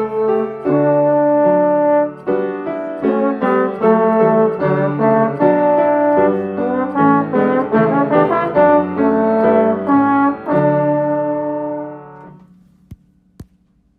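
Instrumental music in several parts with a brass-like tone, notes moving in chords, that fades out about twelve seconds in, followed by two faint clicks.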